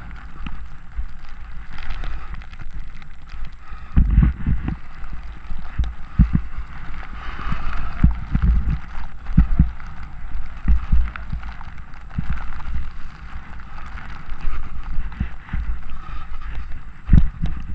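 Snowboard sliding and carving down a snow slope, a steady scraping hiss of the board on snow, with irregular low thumps and rumbles of wind buffeting the body-mounted camera's microphone.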